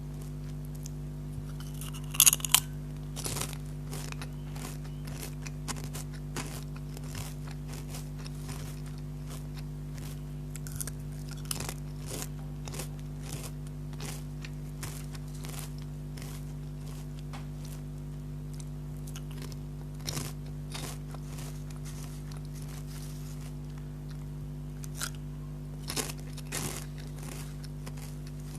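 Potato chips being bitten and chewed: crisp, irregular crunches, loudest about two seconds in and again near the end, over a steady low hum.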